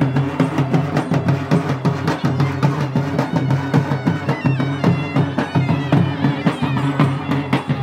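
South Indian folk festival music: fast, dense drumming over a steady low drone, with a high reed-pipe melody rising briefly about four to five seconds in.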